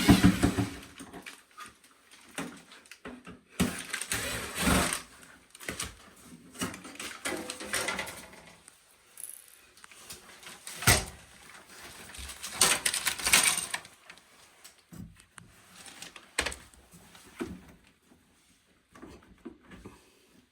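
Intermittent knocks and scraping from hands and tools at work on a refrigerator, with a sharp knock at the start and another about eleven seconds in; it grows quieter near the end.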